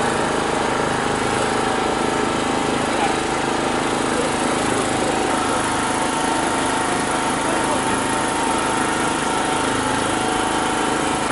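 A small engine running steadily without change, with voices murmuring underneath.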